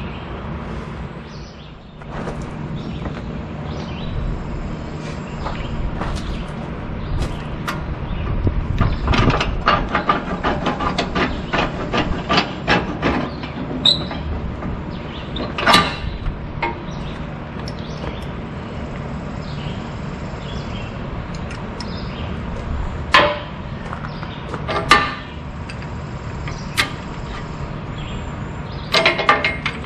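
Metal clanking and knocking from a seized tractor three-point-hitch top link being worked loose by hand, the link and its pins rattling against the hitch. A flurry of quick taps comes from about eight to fourteen seconds in, then a few single sharp knocks, over a steady low hum.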